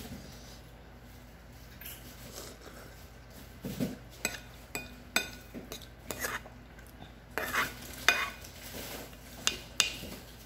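Metal spoon and chopsticks clinking and scraping against a bowl of noodle soup while eating, a run of irregular sharp clinks, some briefly ringing, from about four seconds in.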